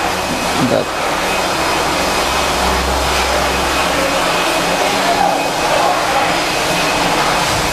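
A steady rushing of air from a workshop machine running continuously, with a low hum under it.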